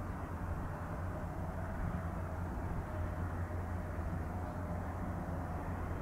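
Boeing 777-300ER's twin GE90 turbofans on final approach: a steady low rumble with a faint hum above it, slowly getting louder as the jet nears.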